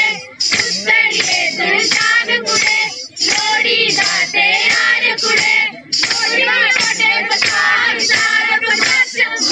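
Voices singing a Dogri folk Lohri song over a steady percussion beat of about three strokes a second.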